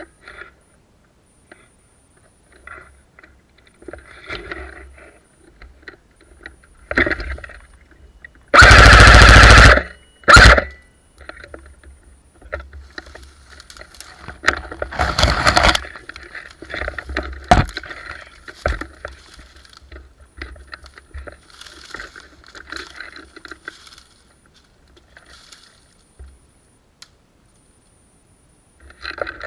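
Airsoft rifle firing full-auto bursts very close to the microphone: a long burst about a third of the way in, a short one right after it, another near the middle, then a single sharp click a couple of seconds later. Irregular rustling and scuffing fills the gaps between.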